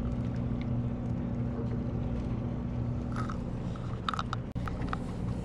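The fishing boat's engine running with a steady low hum. A short cluster of light clicks and rattles comes about three to four seconds in.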